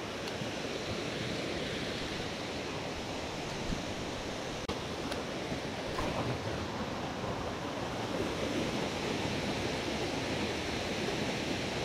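Steady rush of waterfalls pouring into a pool, an even wash of water noise with a couple of faint clicks a little before halfway.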